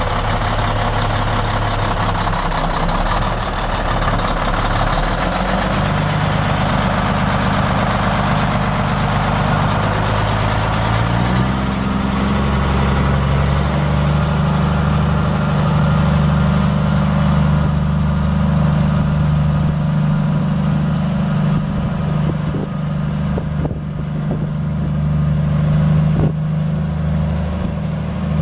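Peterbilt 379 semi tractor's Caterpillar C12 six-cylinder turbo diesel running, its pitch stepping up about five seconds in and again about halfway through as the truck drives off, then holding steady.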